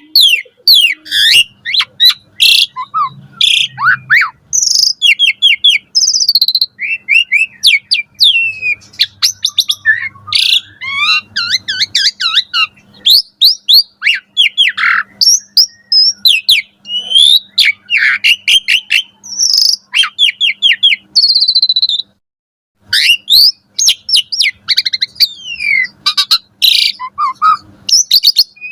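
Asian pied starling (jalak suren) in full song: a fast, varied jumble of whistles, chirps and rapid rattling note series, rich in fill-in phrases. It breaks off briefly about three-quarters of the way through.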